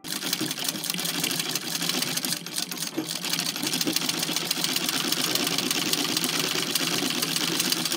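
Singer 127 vibrating-shuttle sewing machine starting up abruptly and stitching through felt at a steady speed, with a fast, even ticking of the needle and shuttle. Fitted with a replacement shuttle carrier, it runs much quieter, without the clunking that the broken carrier spring caused.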